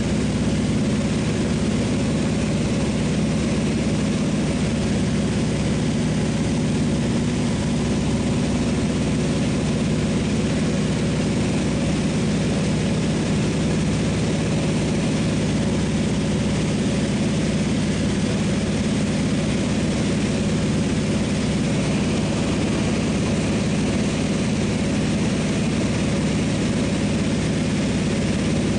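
Seaplane's propeller engine running steadily at an even pitch, heard from inside the cabin, as the plane lifts off the water and climbs.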